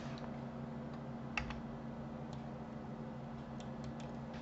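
A handful of scattered clicks from a computer mouse and keyboard, the loudest about a second and a half in, over a steady low hum.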